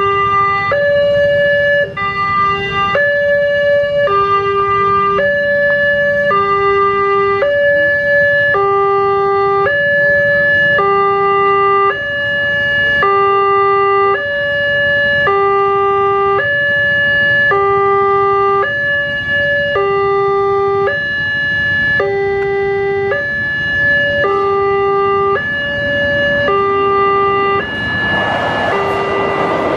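Railway level crossing's electronic warning alarm sounding a steady two-tone hi-lo chime, switching pitch about once a second, to warn of an approaching train. About two seconds before the end, the rumble of the oncoming train rises beneath it.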